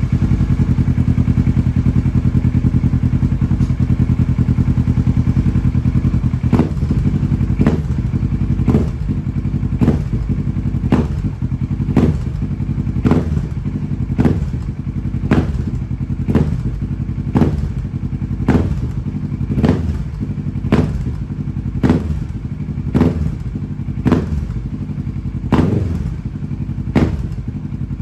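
Kawasaki 650 parallel-twin motorcycle engine through a full Akrapovic exhaust, running steadily at first, then blipped over and over, a short sharp burst about once a second.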